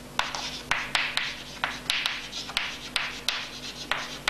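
Chalk writing on a chalkboard: a quick series of scratchy strokes and sharp taps as a word is written out by hand.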